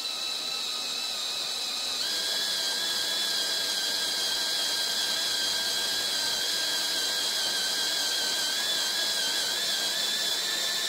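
Hyper Tough cordless drill spinning a thread-insert drill bit in a drill guide at the bottom of a head-bolt hole in an aluminum LS block: a steady high whine with no cutting load. The bit's flattened tip has reached the bottom of the hole and lost all its resistance. The whine steps up slightly in pitch about two seconds in.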